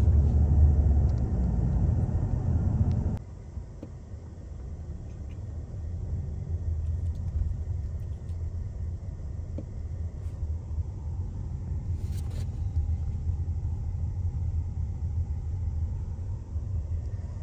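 Road and engine rumble inside a moving car's cabin, loud at first and dropping suddenly about three seconds in to a quieter, steady rumble.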